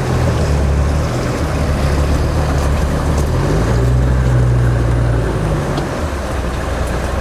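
Land Rover Defender 90's Td5 five-cylinder turbodiesel pulling steadily in low first gear through deep flowing floodwater, its engine note dipping and rising a couple of times, over the rush of water.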